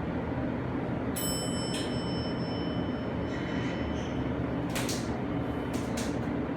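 Hydraulic scenic elevator cab in motion: a steady low hum runs throughout. About a second in there is a brief high tone, and near the end a few sharp clicks.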